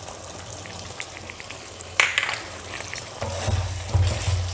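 Thick chicken curry sizzling gently in a pan. A sharp clink about two seconds in, then from about three seconds on the curry is stirred, a spoon scraping and sloshing through the gravy.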